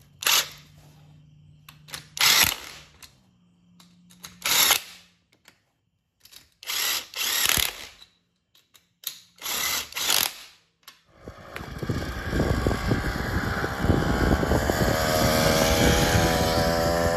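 Cordless 18V impact wrench hammering in several short bursts as it tightens nuts on the rear sprocket mount of a bicycle. About eleven seconds in, a bicycle-mounted two-stroke engine kit takes over, running loud and steady as the bike rides past, with its bottom exhaust removed so it is essentially straight-piped.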